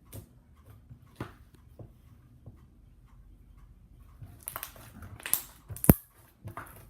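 Hands squishing and stretching fluffy white-glue slime, with small wet clicks and crackles that thicken about two-thirds of the way through and end in one sharp pop.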